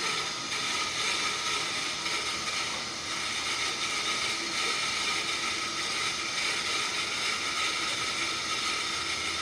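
Apex 16-inch disc sander with a 1 hp three-phase motor, running steadily at speed: an even whir with a constant high whine.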